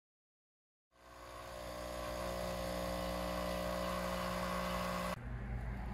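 Espresso machine's pump humming steadily while a shot pours. It starts about a second in, swells briefly, holds steady, and cuts off abruptly about five seconds in.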